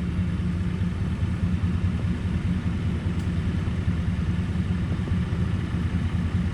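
Tractor engine running steadily, a low even drone with no change in speed.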